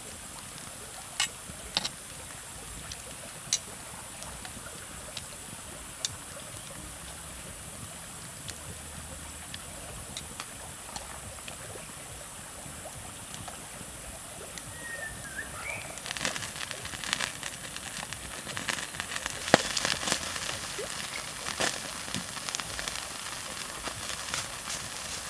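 Wood fire crackling under a hot stone slab, with baby octopus sizzling on the stone: a steady hiss with a few sharp pops, then denser crackling and popping from about two-thirds of the way in.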